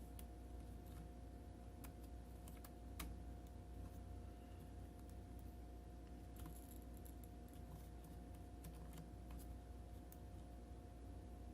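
Faint, scattered light clicks and taps of a laptop RAM module being handled and pushed at its memory slot, one sharper click about three seconds in, over a steady low hum.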